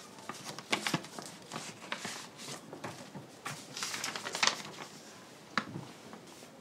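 A paper letter being handled, opened and unfolded: short bursts of paper rustling, the loudest about a second in and again around four and a half seconds in, with a single sharp crinkle near the end.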